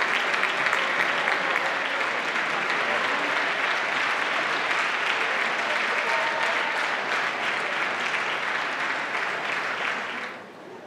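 A large audience applauding steadily: dense clapping that cuts off suddenly near the end.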